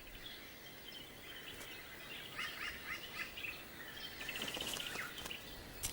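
Faint forest ambience with birds calling: a few short high chirps about two to three seconds in, then a quick rattling run of clicks a little later.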